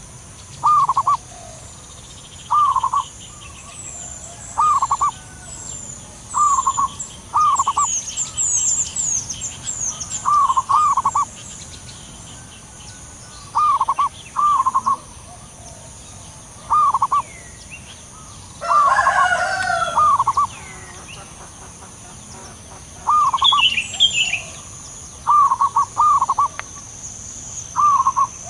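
Zebra doves cooing: short trilled coos, often in quick pairs, repeated every second or two. Smaller birds twitter high and faint in the background.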